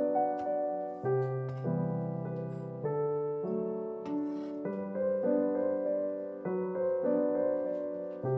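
Solo piano background music, a slow, gentle melody with new notes and chords struck about every half second to a second.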